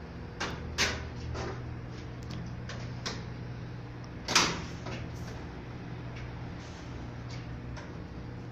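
Sharp metallic knocks and clatter from handling parts inside a metal electrical distribution panel, a few in the first half and the loudest about four and a half seconds in, over a steady low electrical hum.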